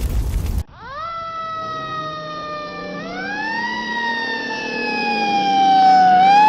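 A loud rumbling noise stops abruptly about half a second in, and an emergency-vehicle siren starts wailing. Its pitch sweeps up, sinks slowly, and sweeps up again twice.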